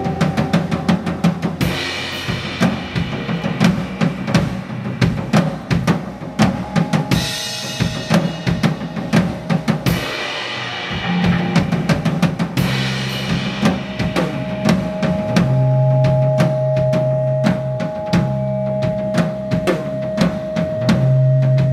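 Rock band playing live, led by a drum kit with kick drum, snare and cymbals over low bass notes. A steady held high note joins about two-thirds of the way through.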